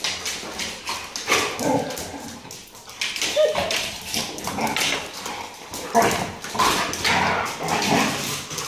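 Several dogs play-fighting, with whines and short yips among scuffling bursts of noise.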